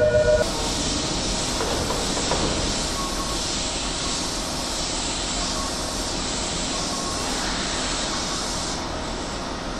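Electric commuter train moving along the station platform, a steady rolling noise of wheels on rail. A louder sound with several steady tones stops about half a second in.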